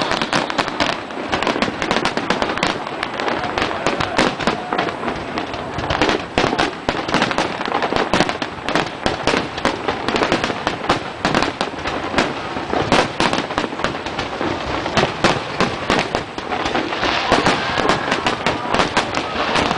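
Fireworks display: a dense, continuous barrage of bangs and crackling, many sharp reports a second with no let-up.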